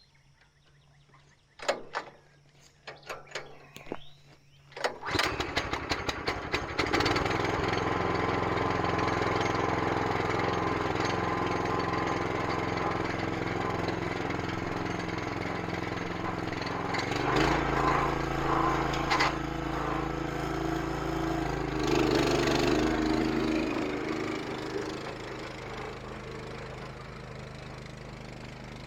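Small gasoline engine starting after a few short sputtering attempts about five seconds in, then running steadily. Around two-thirds of the way through it runs heavier and louder for several seconds, then eases off near the end.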